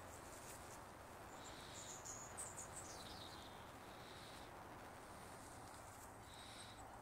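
Faint birdsong over quiet background hiss: a few brief high chirps, and a short falling trill about two to three seconds in.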